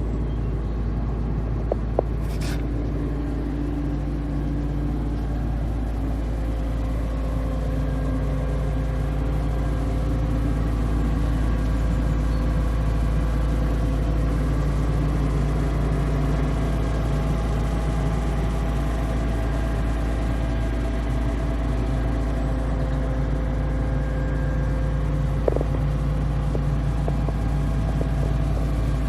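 Tracked excavator's diesel engine running steadily, a little louder after about ten seconds, with two brief knocks, one near the start and one near the end.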